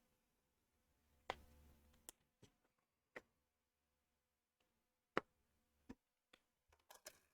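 Faint, scattered clicks of plastic LEGO Technic parts being handled and fitted together, about seven in all at irregular intervals, with a brief rustle of parts after the first click about a second in.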